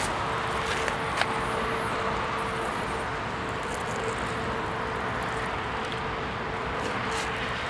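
Steady outdoor background noise with a faint steady hum and one sharp click about a second in.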